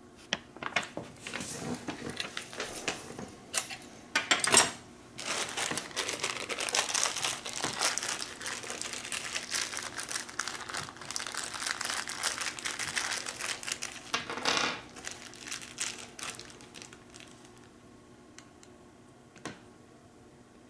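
Crinkling and rustling as hands handle packaging, with a few sharp clicks about four and a half seconds in. The rustling thins out after about seventeen seconds to a few light ticks of small hardware.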